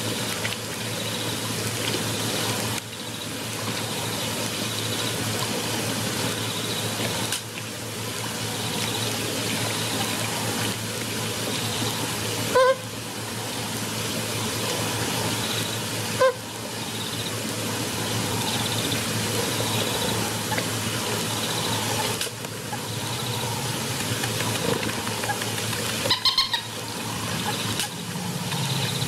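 Steady outdoor waterhole noise with a bird honking briefly twice about halfway through, then a quick run of calls near the end.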